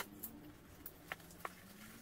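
A few faint, short clicks and taps as a pipe wrench grips and works the cut rubber edge of an old car tyre.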